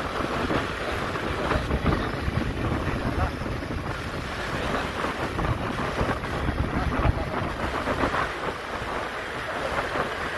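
Wind buffeting the microphone: a steady rushing noise with a fluttering low rumble.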